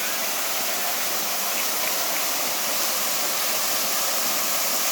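Steady rush of flowing water, a continuous even hiss.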